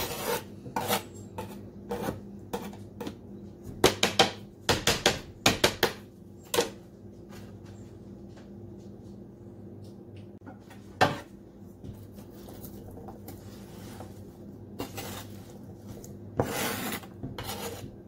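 A knife scraping food off a plastic cutting board into a cooking pot: a cluster of sharp clicks and scrapes a few seconds in, a single loud knock around the middle, and a longer scrape near the end, over a steady low hum.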